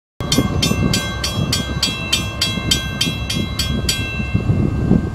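Railroad grade-crossing warning bell ringing in rapid even strikes, about three a second, then stopping about four seconds in. Under it runs a steady low rumble with wind on the microphone.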